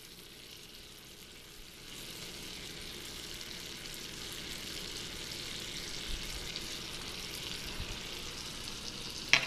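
Cubed acorn squash frying in a skillet with melting butter and apricot jam: a steady sizzle that grows louder about two seconds in.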